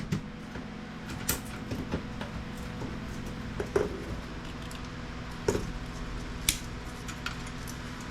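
Scattered clicks and light clatters of small metal and plastic parts being handled while electronic equipment is taken apart by hand, a sharp tick every second or so, over a steady low hum.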